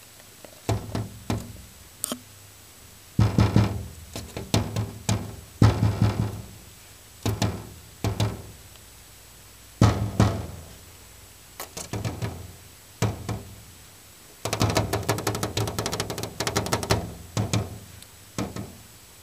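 Crested pigeon striking a window pane with its beak and wings: irregular clusters of sharp knocks and thuds on the glass, with a fast flurry of blows a little past the middle. The bird is attacking its own reflection in the glass.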